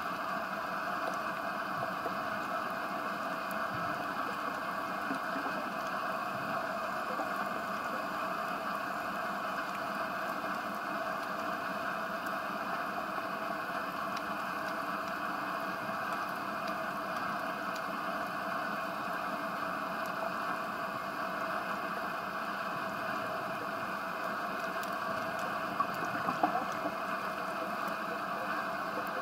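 Steady, muffled underwater noise heard through a waterproof camera housing, with a few sharp clicks near the end.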